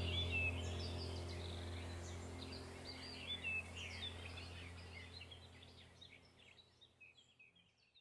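Small birds chirping and calling in quick, short notes over a steady low hum, the whole sound fading out toward silence near the end.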